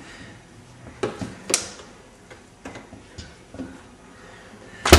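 Light, scattered clicks and knocks of a wooden kitchen cabinet door and the trash bin inside being handled, then one sharp knock near the end as the cabinet door is shut.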